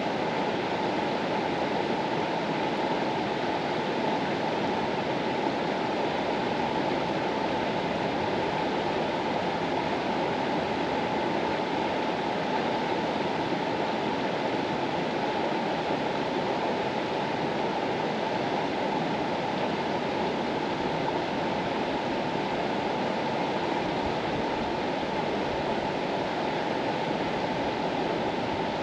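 The Mastallone, an Alpine mountain river, flowing: a steady, even rush of water with no breaks or changes.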